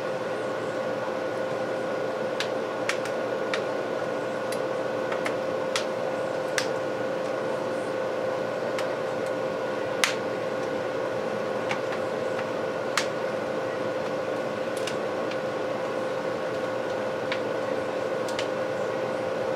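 Steady machine hum with a held tone throughout, like a fan running, and over it a dozen or more scattered sharp clicks. The clicks fit the plastic parts of a Samsung Galaxy Tab 3 being pushed and snapped back together after a front glass replacement.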